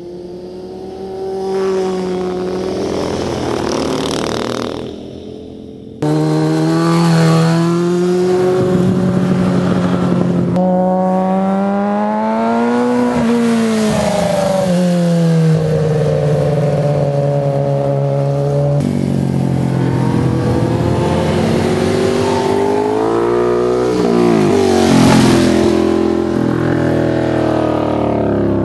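Sport motorcycle engines passing one after another, revving and easing off through a bend, their pitch rising and falling with each pass. The sound jumps abruptly a few times where separate passes are joined.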